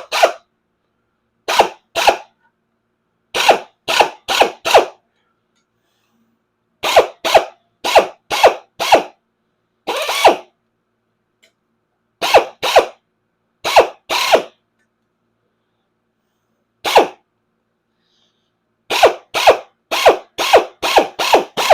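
Power sheet-metal nibbler cutting a steel patch panel in short bursts, about twenty in all, mostly in quick clusters of two to eight with pauses between. It is triggered briefly each time so that it doesn't run away along the cut line.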